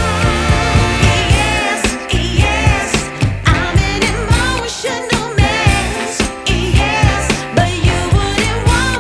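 Background music with a steady beat and a wavering, vibrato-laden melody line, sung or played.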